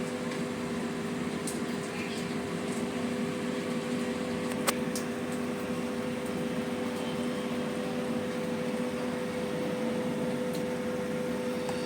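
Steady mechanical hum from a running motor, with one sharp click about halfway through.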